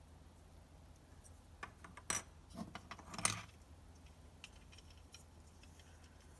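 Hard plastic LEGO pieces clicking and rattling as they are handled, in a short cluster of sharp clicks a couple of seconds in, followed by a few faint ticks.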